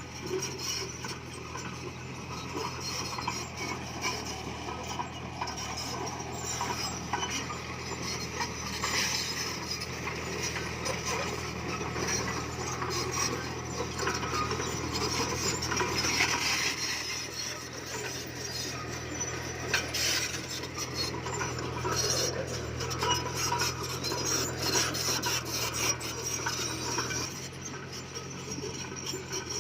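Komatsu D20P bulldozer working, its diesel engine giving a steady low drone under continuous metallic rattling and scraping from the tracks and the pushed stone.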